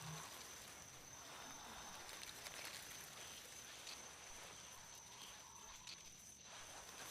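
Faint night-time forest ambience: crickets trilling in one steady high tone over a soft, even hiss.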